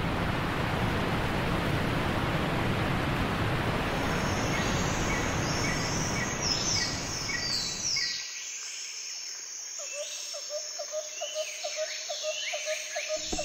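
Nature ambience: a steady rush of water runs for about eight seconds and then cuts off, with birds chirping from about four seconds in. After the water stops, birds keep chirping over a quick pulsing call that repeats about four times a second.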